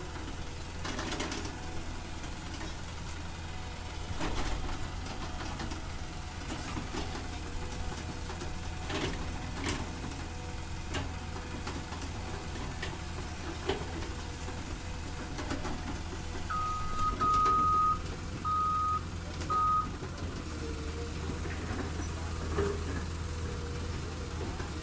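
Diesel engine of a Cat hydraulic excavator running steadily under load, with scattered clanks and knocks of rock as the bucket digs and dumps into a dump truck. About two-thirds of the way through, a high electronic beep sounds four times in quick succession, in uneven lengths.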